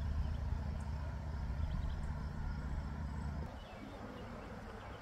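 A low engine rumble with a steady hum, cutting off suddenly about three and a half seconds in and leaving only faint outdoor background.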